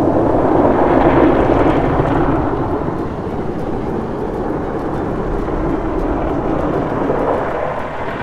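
Car-wash brushes and water spray working over a truck's windshield and body, heard from inside the cab as a loud, steady rushing noise that eases slightly about three seconds in.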